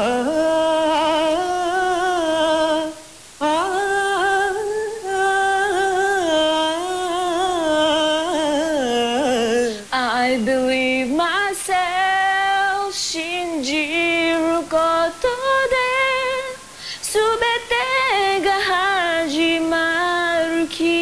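Unaccompanied solo singing: a voice holds long notes with vibrato and slides through ornamented runs, broken off by short gaps a few times.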